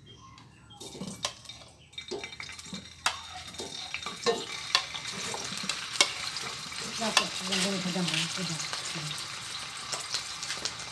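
Vigan longganisa pork sausages frying in hot oil in a stainless steel pan. The sizzle starts about a second in and grows louder, with frequent sharp pops and spatters.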